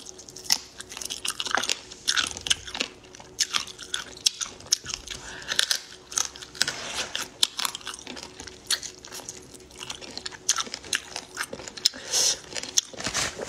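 Close-miked eating: biting, chewing and wet mouth clicks and smacks in quick, irregular bursts throughout.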